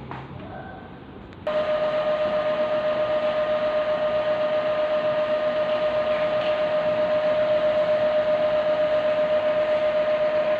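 Epson L3110 inkjet printer running: a steady mechanical whine over a whirring hiss starts suddenly about a second and a half in, with a fast, even flutter.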